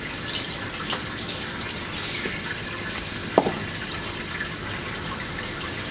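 Steady hiss of running or splashing water, with a small click about a second in and a sharp knock a little over three seconds in.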